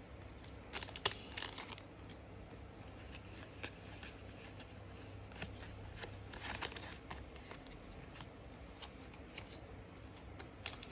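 Yu-Gi-Oh trading cards being handled and flipped through by hand: soft, scattered flicks and slides of card against card. They are busiest about a second in and again around six to seven seconds in.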